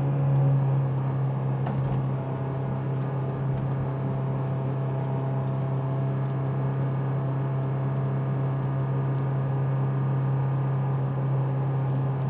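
Cabin noise of a Honda S2000 with a Mugen catback exhaust cruising steadily at about 30 mph: a steady low engine and exhaust drone. The interior has been sound-deadened with butyl mat and Thinsulate, and the cabin measures under about 75 dB.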